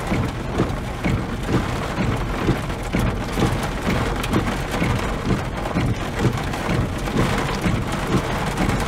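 Heavy rain striking a car's roof and windows in a dense, irregular patter of drops.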